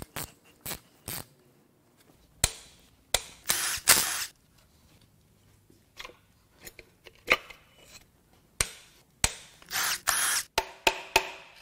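Short bursts of a handheld power tool working the connecting-rod cap bolts of a VR30DDTT V6 short block, broken up by sharp metallic clicks and clanks as parts are handled.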